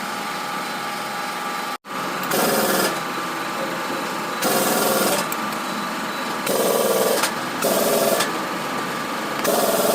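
A small motor running steadily and stepping up in short bursts about five times.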